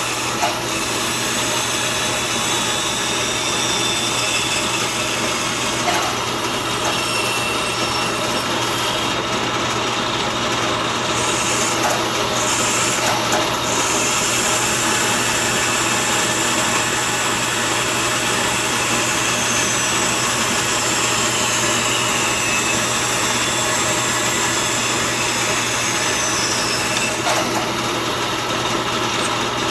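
Band saw running steadily, its blade cutting letter shapes out of walnut boards.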